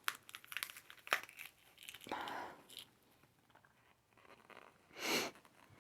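Cooked balut eggshell being cracked and picked at by hand: a run of small clicks and crackles, with two louder crackling rustles about two seconds in and near the end.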